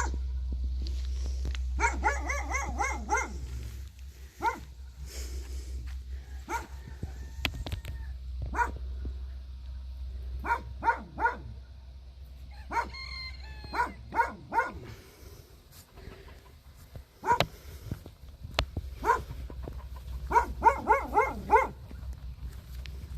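Dog barking: a quick run of barks about two seconds in, then single barks scattered through the middle, and another quick run near the end.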